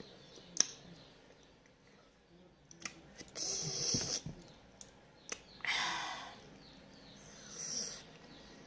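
Close-up mouth sounds of someone eating juicy fruit: a few sharp lip-smack clicks, then three short slurps, the first about three seconds in. Birds chirp faintly in the background.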